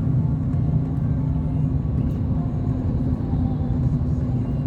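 Car driving on the road: a steady low rumble of engine and road noise with a faint even hum.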